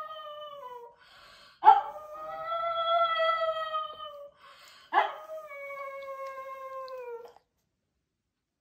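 Pug howling: a drawn-out howl tails off about a second in, then two more long howls follow about three seconds apart. Each starts with a sharp attack and dips in pitch as it ends.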